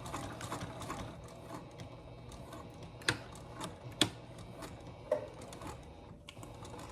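Sewing machine stitching: a steady motor hum with rapid needle ticking, and a few sharper clicks about three, four and five seconds in.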